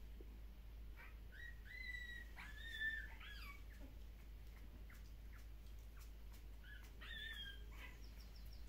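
Shiba Inu puppy giving a few faint, short, high-pitched squeals and whimpers while being handled, in two clusters: from about a second and a half to three and a half seconds in, and again around seven seconds.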